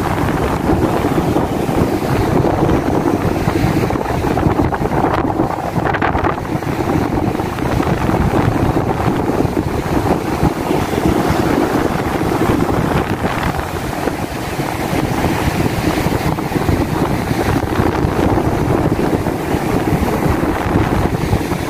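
Strong wind buffeting the phone's microphone, over rough surf breaking on a sandy beach. The noise is steady and dense.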